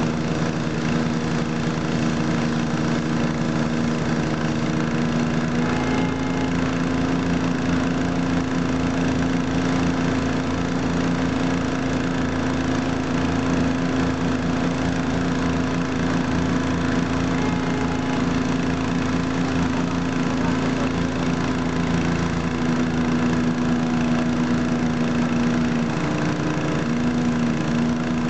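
An engine running steadily at a constant speed, with a steady hum that shifts slightly in pitch about six seconds in and again near the end.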